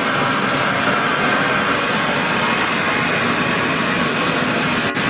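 Steam venting from an old steam engine's boiler with a loud, steady hiss as it comes up to pressure.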